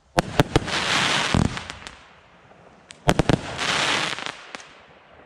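Black Cat 'After Midnight' 190-shot firework cake firing two volleys. A quick cluster of sharp bangs comes shortly after the start and another about three seconds in, each followed by about a second of crackling that dies away near the end.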